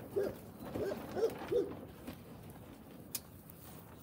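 Young puppies giving about five short yips with a rising-and-falling pitch while play-fighting, in the first second and a half, then going quieter.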